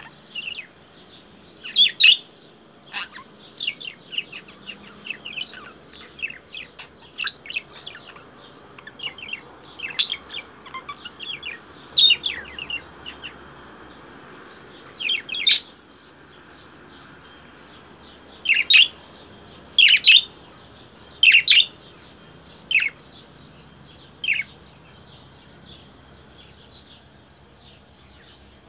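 Budgerigar calling in short, sharp chirps and squawks, with the loudest run of squawks about two-thirds of the way through and fewer calls near the end. The squawks are the harsh, crow-like calls this budgie is known for.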